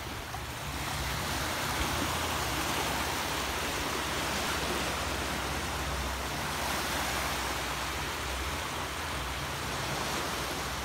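Small waves breaking and washing up onto a sandy beach: a steady wash of surf.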